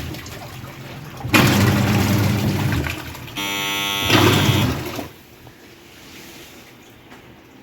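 Water splashing and sloshing in two short bursts as a phone is moved around in it, with a brief buzzing tone about three and a half seconds in.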